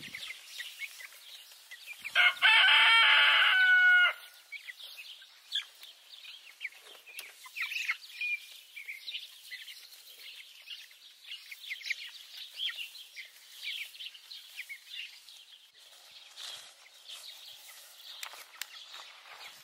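Flock of young white Cornish cross meat chickens peeping and chirping with many short, high calls. About two seconds in, a loud crow-like call is held for about two seconds and then breaks off.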